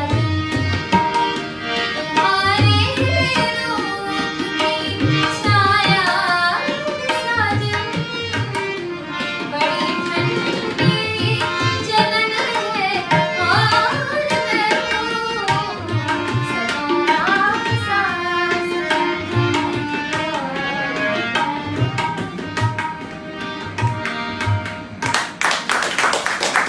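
A woman singing with harmonium and tabla accompaniment, the tabla's low drum strokes marking a regular beat under her ornamented melody. Near the end the music stops and a burst of hand clapping starts.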